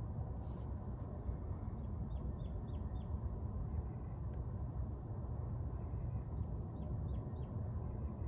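A steady low outdoor rumble, like wind or distant traffic, with a small bird faintly giving a quick run of about four short descending chirps twice, a few seconds apart.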